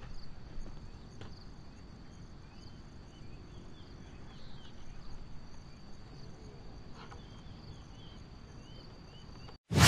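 A steady high-pitched insect drone, typical of crickets, with a few faint short chirps in the middle and a low rumble underneath. Right at the end the sound drops out and a sudden loud burst cuts in.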